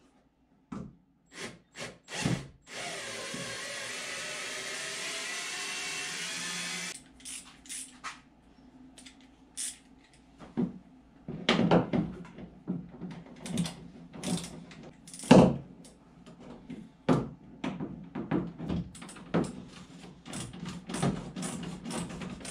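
Cordless drill/driver run for about four seconds at a canoe seat, its whine rising slightly, taking out a fastener while the canoe is stripped down to the hull. A few clicks come before it, and afterwards scattered knocks and clatters of parts being handled inside the hull.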